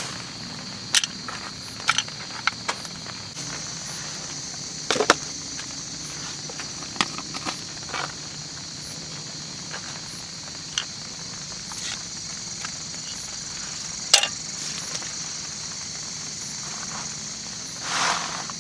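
Steady high-pitched chirring of night insects, with scattered sharp clicks and knocks every second or two and a brief louder rustle near the end.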